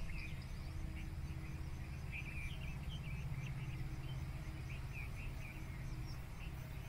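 Outdoor ambience of small birds chirping in short scattered calls, with a faint insect calling in an evenly spaced high pulse, over a steady low rumble.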